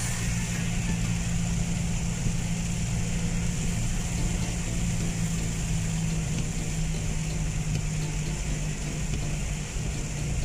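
Car engine running steadily, heard from inside the cabin, under a steady hiss of rain and tyres on the wet road.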